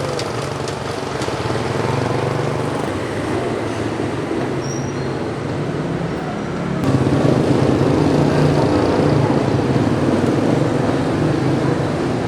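Street traffic with vehicle engines running steadily; the engine noise steps up louder about seven seconds in.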